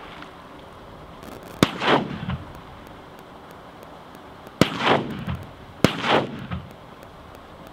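Three shotgun blasts, one about a second and a half in and two more close together past the middle, each followed by a rolling echo.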